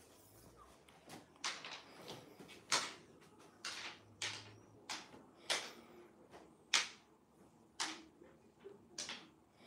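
Cat wand toy being swished back and forth: more than a dozen quick, irregular swishes.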